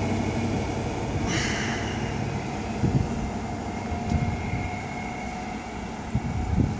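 Diesel engines of a CrossCountry HST's Class 43 power cars droning steadily as the train pulls away, the sound slowly fading with distance.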